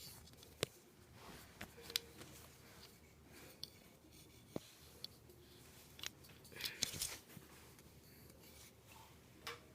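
Faint sharp clicks and brief rustling of small plastic parts being handled, as an action figure's plastic legs are worked onto ball joints.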